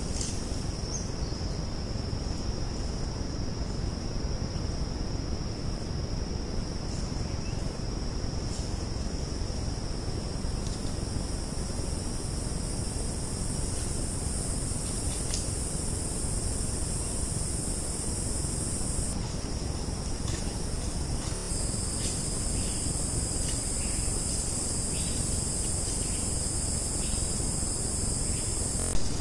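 Steady shrill insect chorus, a continuous high drone with a still higher hiss above it that shifts in strength about two-thirds of the way through, over a steady low background hiss. A short loud knock comes just before the end.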